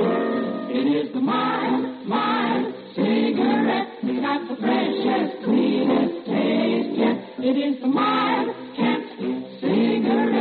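Music: a group of singers singing together, choir-like, in short phrases.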